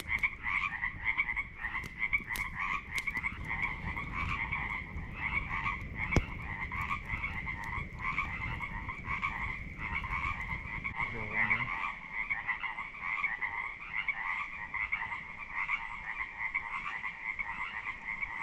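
A chorus of frogs croaking: rapid pulsed calls repeating without a break. A low rushing noise underneath drops away about two-thirds of the way through.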